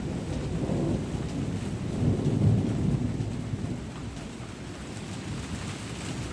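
Thunder rumbling low from a distant storm, swelling about two seconds in and then easing off, with rain falling steadily underneath.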